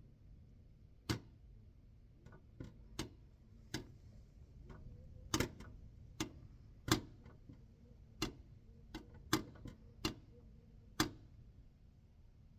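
Electrolux range hood's backdraft damper flap clacking as wind outside blows it, about fifteen sharp clicks at uneven intervals, some in quick pairs.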